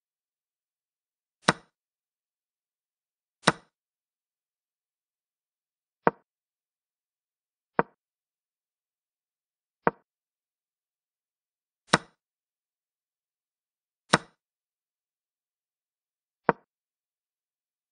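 Online chess board's piece-move sound effect: eight short wooden clicks, one for each move, spaced about two seconds apart. Four of the clicks are sharper and brighter than the rest.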